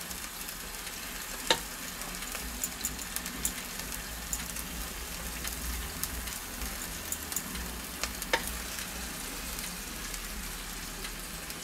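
Chicken legs sizzling in the hot baking tray of a Tefal OptiGrill: a steady hiss of fat frying, dotted with small crackles. Two sharper clicks, about a second and a half in and about eight seconds in.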